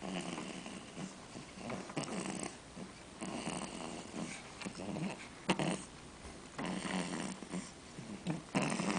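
Snoring: several noisy breaths repeating a second or two apart, each a rough, low rasp.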